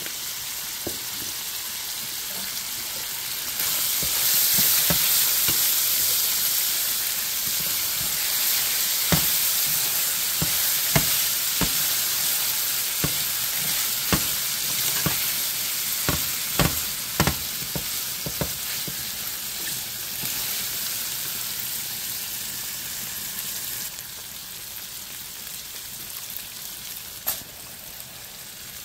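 Saltfish and vegetables frying in a stainless skillet with a steady sizzle that grows louder a few seconds in and eases off near the end. A utensil knocks against the pan several times in the middle as the food is stirred.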